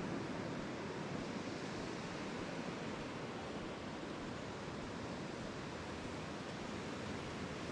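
Steady, even rush of ocean surf breaking on the beach.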